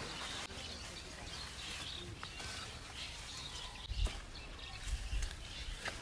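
Birds chirping here and there over steady outdoor background noise, with low thumps about four seconds in and again shortly before the end.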